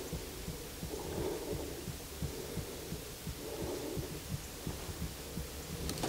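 Slow, heartbeat-like throbbing, about one beat every second or so, over low, irregular thumps.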